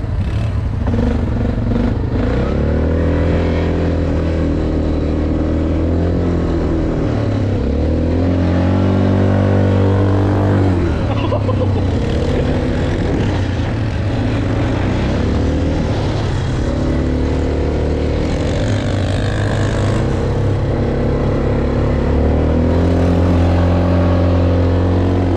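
ATV engine running under way, revving up and easing back several times in long swells.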